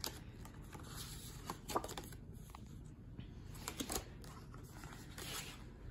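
Faint rustling and sliding of paper as a book page is turned and a paper card is drawn out of an envelope, with a few short ticks of paper handling.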